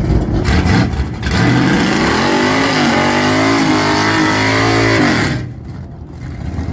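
A car engine running rough, then revving up about a second and a half in and holding high revs, dropping off about five seconds in.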